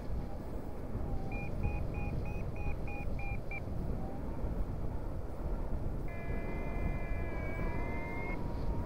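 A paragliding variometer beeps about three times a second for a couple of seconds, the climb signal of rising air, then sounds one held tone for about two seconds near the end, wavering slightly in pitch. Airflow rushes over the microphone throughout.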